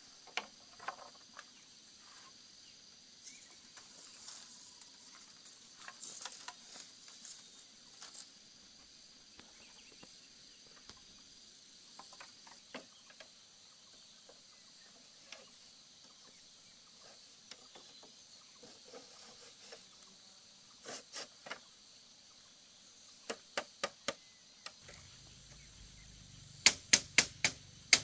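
Split bamboo strips and poles clattering and knocking as they are handled and laid into a frame, over a steady drone of insects. Near the end comes a run of loud, sharp strikes, about three a second.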